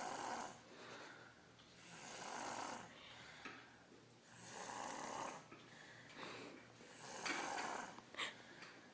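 A three-year-old child snoring like an adult: four snoring breaths, one about every two and a half seconds.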